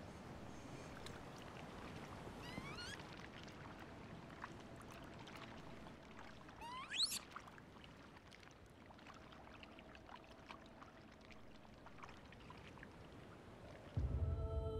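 Water trickling steadily, with a few rising, whistle-like Japanese macaque calls; the loudest is a quick upward sweep about seven seconds in. Music comes in near the end.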